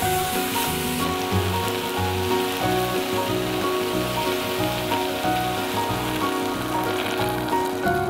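Diced apple sizzling as it is sautéed in coconut oil and sugar in a small saucepan, a steady hiss heard under background music.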